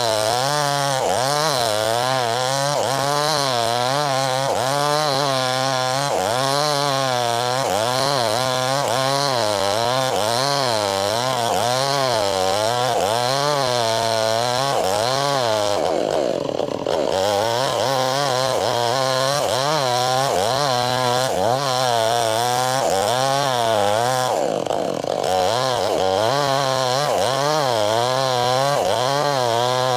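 Chainsaw cutting lengthwise through a log, the engine running hard under load. Its pitch wavers up and down about once a second as the bar is worked through the cut, and twice it sags lower for about a second, once midway and once later.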